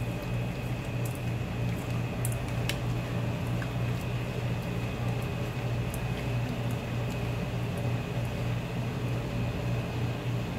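Steady low machine hum of kitchen equipment, with faint wet squishing and a few light clicks as a hand mixes raw shrimp with salt and pepper in a stainless steel bowl.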